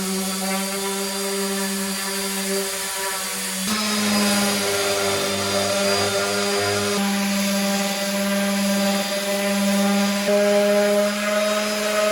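Electric power tool motor running steadily, with a steady hum, while wood is worked. Its pitch jumps to a slightly different note a few times, about 4, 7 and 10 seconds in.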